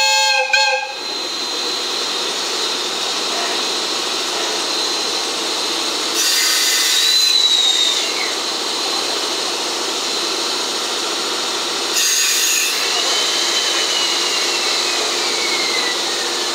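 D51 steam locomotive standing coupled to an electric locomotive and hissing steadily. Twice a loud burst of hissing air or steam goes off, each trailed by a thin falling whine. A locomotive whistle blast ends about a second in.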